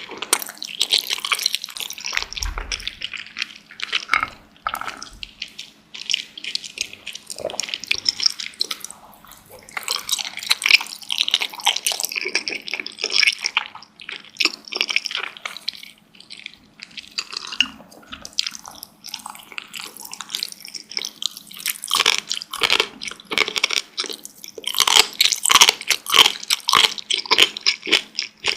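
Close-miked wet chewing and mouth sounds of someone eating dumplings: bouts of rapid wet smacking clicks lasting several seconds, with quieter pauses between them.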